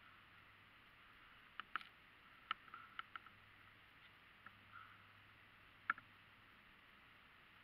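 Near silence broken by a handful of short, sharp clicks and ticks at uneven intervals, the sharpest about six seconds in.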